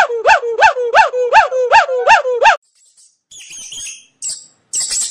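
An animal calling in a fast, even series of short yelps, about three a second, each rising and falling in pitch, which stops a little over halfway through; faint high chirps follow near the end.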